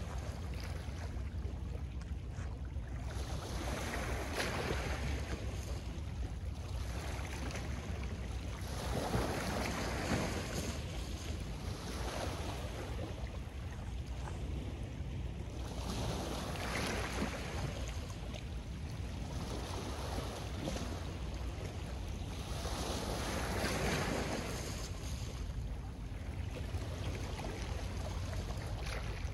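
Small Lake Ontario waves washing in and drawing back over a pebble and rock shore, one soft swell of sound every few seconds, over a steady low rumble.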